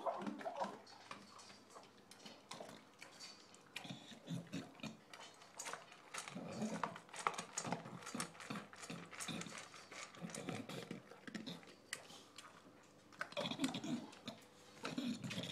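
English bulldog eating dry kibble from a stainless steel bowl: rapid crunching and clicking of kibble against the metal, broken several times by bouts of loud, noisy breathing.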